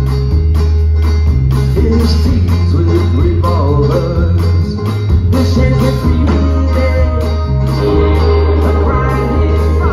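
Live band playing a song: a deep bass line stepping between notes under a steady drum beat, with quick high percussion hits about three a second and a wavering melody line above.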